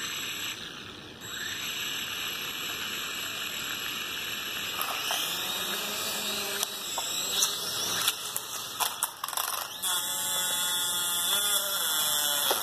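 Small toy quadcopter drones' electric motors and propellers whining, the pitch rising and falling as they are throttled up and down, with several sharp clicks in the middle.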